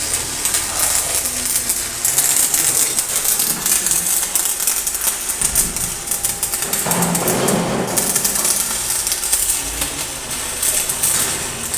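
Stick-welding (SMAW) arc running on pipe: a steady, dense crackling and sputtering of the electrode arc that goes on without a break.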